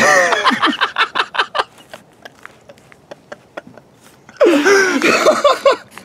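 Laughter in quick repeated bursts for the first second and a half, then a lull, then another burst of laughing voice about four and a half seconds in.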